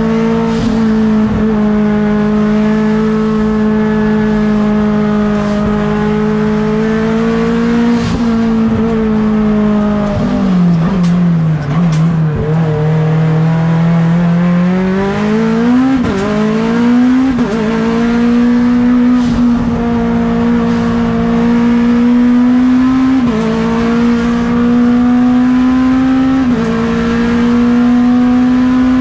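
Mitsubishi Lancer Evolution X hill-climb car's turbocharged 4B11 four-cylinder engine, heard onboard under hard acceleration at high revs. About ten seconds in the revs fall away as the car slows, then climb back. Several quick gear changes show as short drops in pitch.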